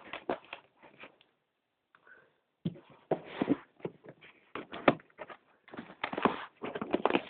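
Rustling and clicking of a mail package being handled and opened: irregular crinkles and knocks, pausing briefly about a second in before going on.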